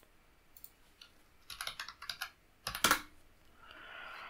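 Computer keyboard being typed on: scattered key clicks, with the loudest quick run a little before three seconds in, then a short soft hiss near the end.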